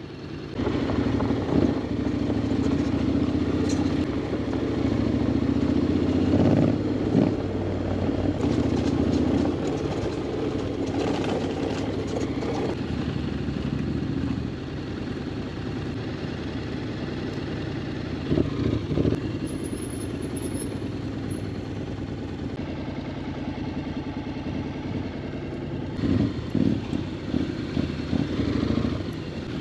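Honda X-ADV 750's parallel-twin engine running at low speed on a gravel track, getting quieter about halfway through, with occasional short knocks and rattles.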